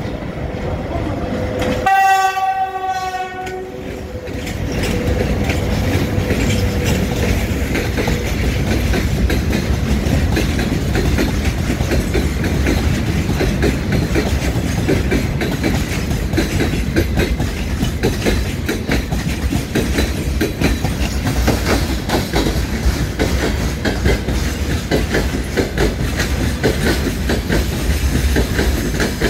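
Freight train of tank cars and open gondola wagons rolling past, wheels clattering over the rail joints in a steady rhythm. About two seconds in, a train horn sounds once for about two seconds.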